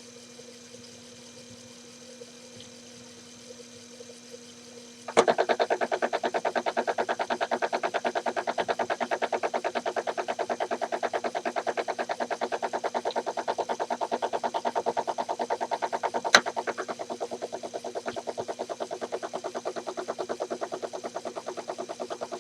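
Home-built reversible slow-speed lead-screw drive on a small lathe starting up about five seconds in, after a faint steady hum, and running with a fast, even clicking. One sharp click comes partway through.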